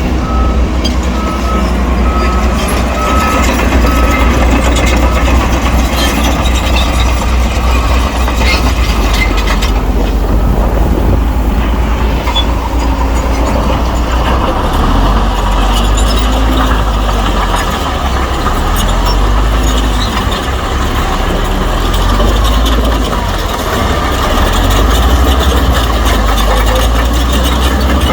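Heavy diesel engines of a bulldozer and a dump truck running steadily under load. A reversing alarm beeps about five times at the start, then stops.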